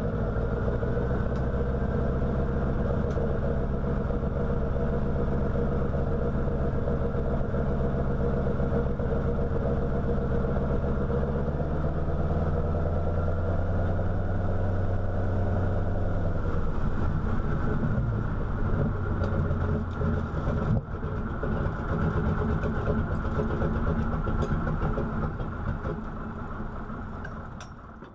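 Seven-cylinder Wright R-975 Whirlwind radial engine of a North American Yale running at low power on the ground, heard from the cockpit. Its pitch drops a little past the middle, then the sound fades out near the end.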